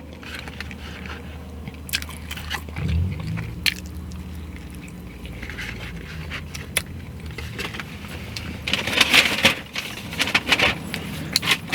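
Close-miked eating: biting and chewing with crisp, crunchy clicks, busiest near the end. A low hum comes in about three seconds in.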